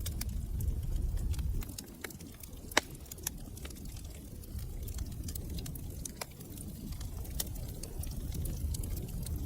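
Wood fire crackling in a fireplace: scattered sharp pops and snaps over a low steady rumble, with one louder pop about three seconds in.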